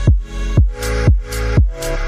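Electronic dance music in a house style: a steady kick drum about twice a second under sustained synth chords.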